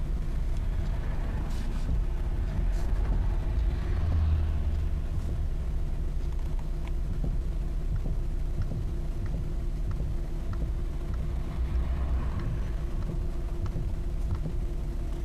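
Car engine idling steadily while the steering wheel of a stationary 2014 Hyundai Elantra is turned, with a few faint knocks from the steering. The owner suspects the steering rack, since a new intermediate steering shaft and U-joints did not cure the knock.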